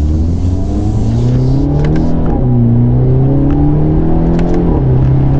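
Hyundai Elantra N's turbocharged 2.0-litre four-cylinder accelerating hard at part throttle, its note rising through the gears. The dual-clutch gearbox upshifts twice, a little over two seconds in and near the end, each shift dropping the pitch before it climbs again.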